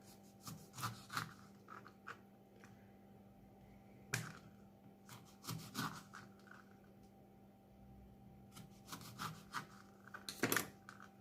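Salted lemons being packed into a jar by hand: scattered knocks, clicks and rubbing, the loudest about four seconds in and again near the end, over a faint steady hum.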